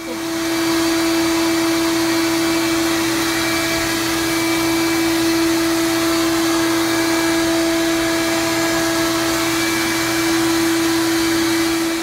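Bee vacuum, a vacuum motor head mounted on a wooden collection box, switching on and quickly reaching a steady whining hum as its hose is used to suck bees off the comb.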